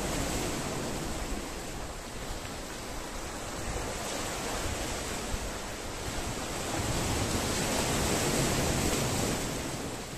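Sea waves washing and breaking against the concrete tetrapods and rocks of a breakwater, a steady churning surf that swells louder for a few seconds in the second half before easing off.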